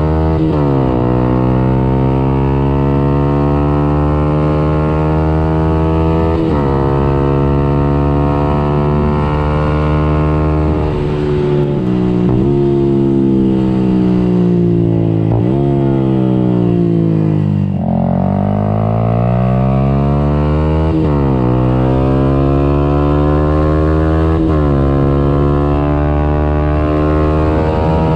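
Yamaha YZF-R 125's single-cylinder four-stroke engine through a Radical Racing exhaust with the dB-killer removed, at full throttle, rising in pitch through several upshifts. About halfway through it slows with the pitch falling across a couple of downshifts, then pulls hard up through the gears again.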